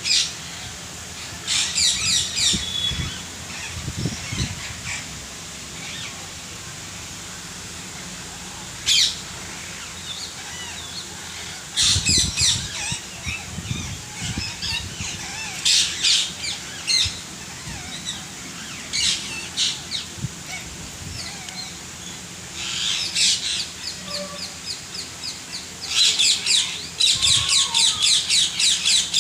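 A group of parrots squawking, in bursts of high-pitched calls every few seconds with short quiet gaps, ending in a fast run of repeated squawks.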